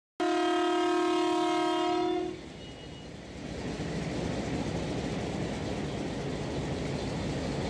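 Hitachi HBU-20 diesel locomotive's horn sounding one blast of about two seconds, a chord of several tones, followed by the locomotive's diesel engine running close by.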